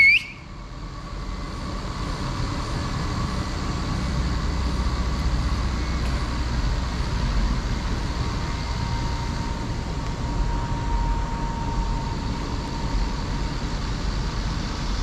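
Kubota SVL95-2S compact track loader's diesel engine running steadily with its forestry mulcher attached. The noise builds over the first couple of seconds, after a brief high chirp at the very start.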